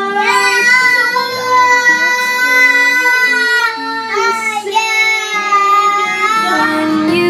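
A young child singing two long, high held notes over a soft acoustic pop song.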